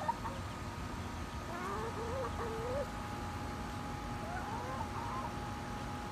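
ISA Brown hen giving soft, wavering, rising calls in two short runs, about a second and a half in and again around four seconds in, over a steady faint background hum.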